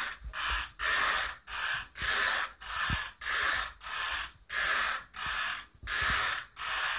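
A child's push vacuum worked back and forth in quick strokes, a rattling whirr in regular bursts of about half a second each, roughly two strokes a second.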